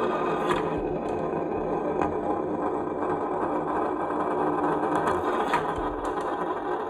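Marbles rolling down a HABA marble run's whirl slope: a steady rolling rumble, with a few sharp clicks as marbles knock against the track and each other.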